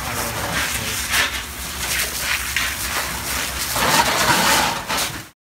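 Fire hose spraying a stream of water onto smouldering rubble: a steady hiss with louder surges, which cuts off suddenly near the end.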